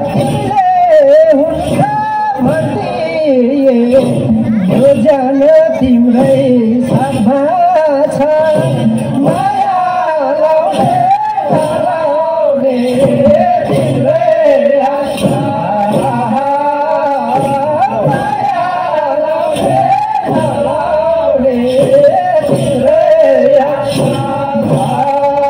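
Folk dance song playing loudly: a sung melody carried over a regular beat, accompanying a stage dance.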